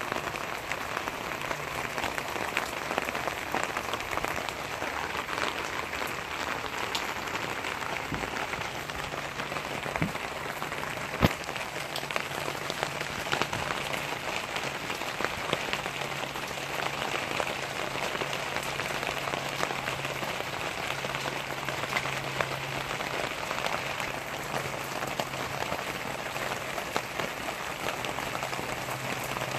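Heavy rain falling on a fabric canopy and a wet van roof: a steady hiss full of small drop ticks. A single sharp tap comes about eleven seconds in, and a faint low steady hum sits underneath from about a third of the way in.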